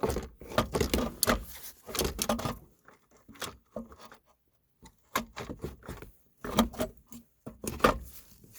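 Irregular clicks, taps and rattles of hands handling plastic console parts and wiring connectors while a shifter assembly is fitted, with a short pause in the middle.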